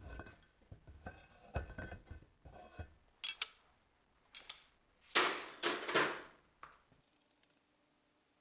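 Metal workshop items knocking and clinking against each other for the first few seconds, then several rasping scraping strokes, the longest about a second, before it goes quiet near the end.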